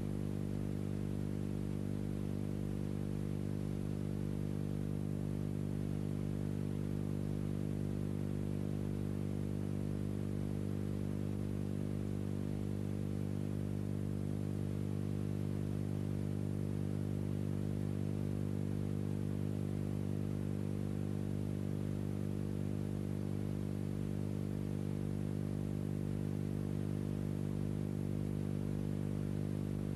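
Steady low electrical hum on an old film soundtrack, unchanging throughout, with no other sound.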